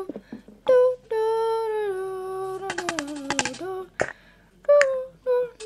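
A high voice humming long, held notes that slide slowly down in pitch, broken by short pauses. A quick run of clicks comes about three seconds in, then a single sharp knock.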